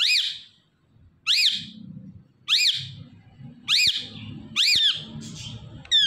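Indian ringneck parakeet giving five loud squawks, about one a second, each call sweeping up and then down in pitch.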